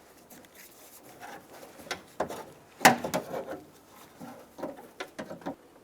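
Scattered light clicks, taps and rubbing as a door lock rod is unclipped from its plastic retaining clip and pulled out inside a pickup truck door. The sharpest click comes about three seconds in.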